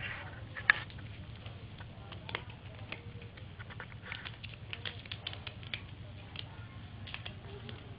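Cats' paws and claws scrabbling and tapping on a hard floor as two cats play-fight: irregular light clicks and taps, with one sharper knock just under a second in.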